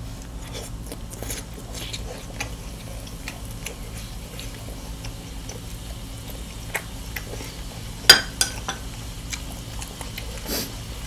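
Chewing grilled beef, with scattered light clicks of chopsticks against a small metal dipping bowl and dishes; the sharpest click comes about eight seconds in. A low steady hum runs underneath.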